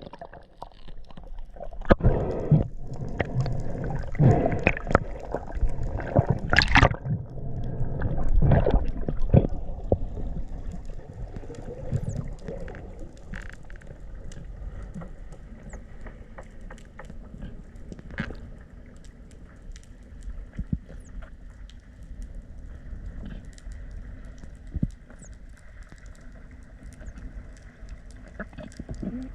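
Water sloshing and gurgling around a spearfisher's camera at the surface and underwater. It is loud and choppy for the first third, then settles into a quieter, steady underwater noise with scattered faint clicks.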